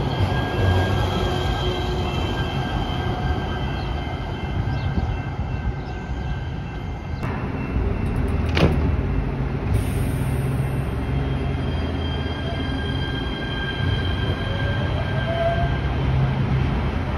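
Los Angeles Metro light rail train running alongside a station platform: a steady rumble of the cars rolling on the rails with faint whines over it. A single sharp clack comes a little past the middle, and a rising whine near the end.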